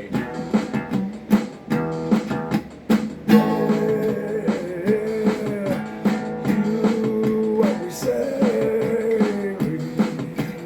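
Instrumental break in a song: guitar over a steady beat. A held, wavering melody line comes in about three seconds in.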